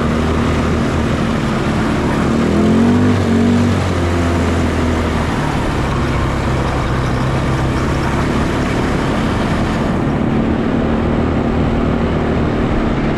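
Four-wheeler (ATV) engine running as it rides along at low speed, with a short rise in engine speed about three seconds in, over a steady rushing noise.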